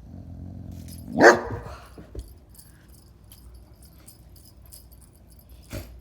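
Dog vocalising as it tries to get a kitten to play: a low grumble, then one loud bark about a second in and a shorter bark near the end.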